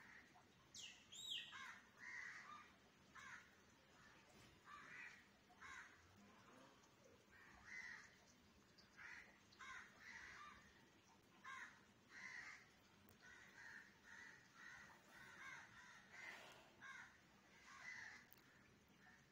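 Crows cawing over and over, faint, one short call after another about every half second to second.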